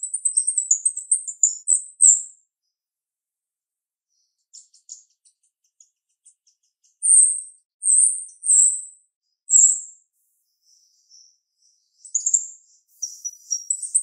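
Female grosbeak starling (jalak rio-rio) calling in sharp, high-pitched chirps: a fast chattering run at first, then four loud separate chirps about a second apart, and chattering again near the end.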